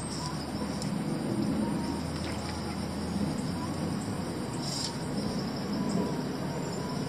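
Steady chorus of tropical insects, a continuous high drone, over the low even rush of river water.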